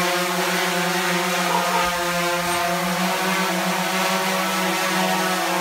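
DJI Phantom 3 Professional quadcopter hovering, its four spinning propellers making a steady, even-pitched hum.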